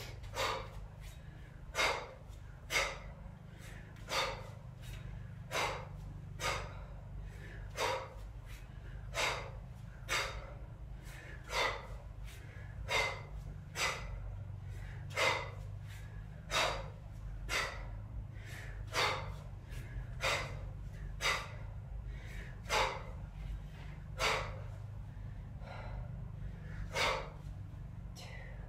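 A woman's short, forceful breaths, a little more than one a second in a steady rhythm, paced to repeated one-arm kettlebell snatches.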